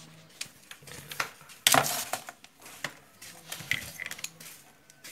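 Metal tools and small parts clinking and clattering as they are handled, with a series of sharp clicks and the loudest clatter about two seconds in.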